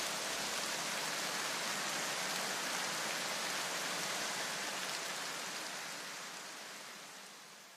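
Steady, even hiss of noise with no pitch in it, fading away over the last two seconds.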